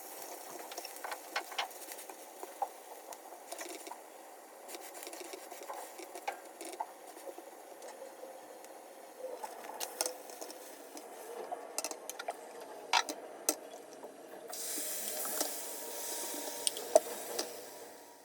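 Kitchen cooking sounds: something on the stove hissing and bubbling steadily, with scattered light clinks and taps of dishes and utensils. About fourteen and a half seconds in, the hiss turns louder and brighter.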